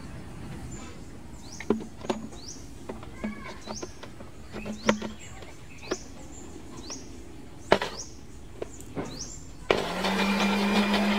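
Sharp knocks and clicks of a plastic blender jar being handled and set on its base, with small birds chirping. Near the end an electric blender motor starts suddenly and runs with a steady hum, churning a liquid egg mixture.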